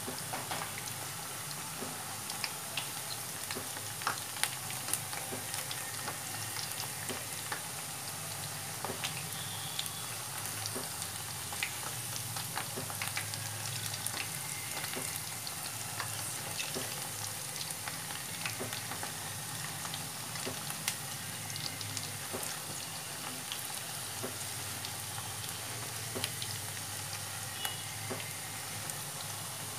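Potato and onion pakoras deep-frying in hot oil in a kadhai: a steady sizzle with frequent small pops and crackles, as a slotted spoon stirs and turns them in the oil.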